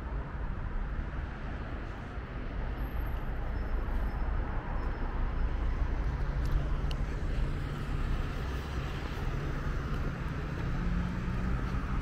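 Steady road traffic noise: the rumble and tyre hiss of passing cars. About halfway through, a low engine hum from city buses comes in and grows toward the end.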